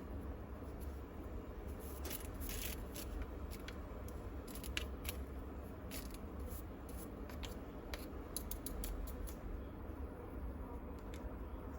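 A brush scraping fine dust off a bed vacuum's filter, in short, irregular scratchy strokes.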